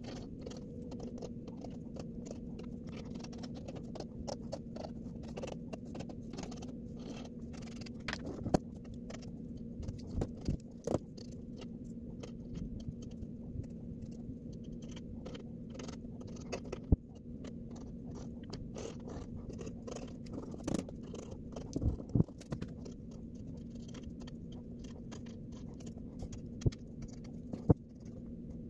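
Pencil lead scratching on paper, sped up into a dense run of quick scratches and ticks, with a few louder clicks and taps scattered through and a steady low hum underneath.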